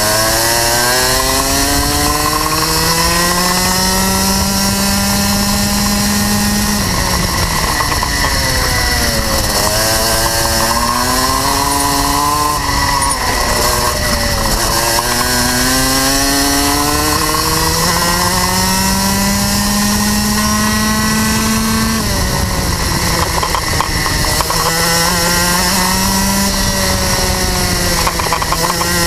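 Rotax Max 125cc single-cylinder two-stroke kart engine at racing speed, heard from onboard the kart: its pitch climbs steadily as the kart accelerates down each straight, then drops sharply as the driver lifts and brakes for a corner, about four times.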